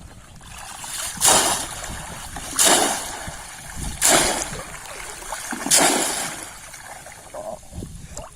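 Water splashing in a shallow pond during fishing with a polo bamboo trap: four loud splashes, about a second and a half apart.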